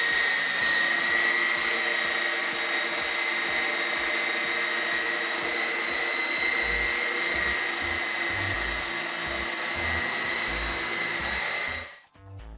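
E-Sky Hunter coaxial RC helicopter in flight: its twin small electric motors give a steady high whine over the hiss of the counter-rotating rotors, cutting off abruptly about twelve seconds in.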